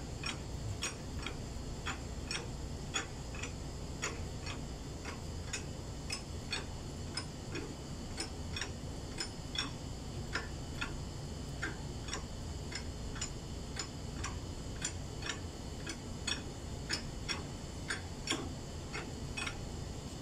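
Steady light clicking, about two clicks a second, over a low steady hum.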